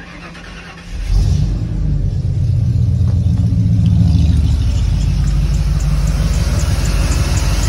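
A bus's newly swapped-in V8 engine turning over briefly and catching about a second in, then running loudly and steadily.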